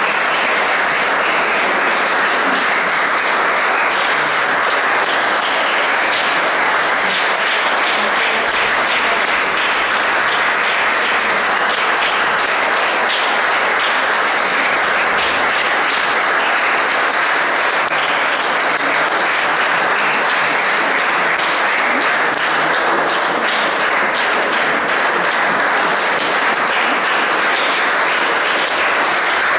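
Theatre audience applauding, a steady, unbroken clapping that holds at the same level throughout.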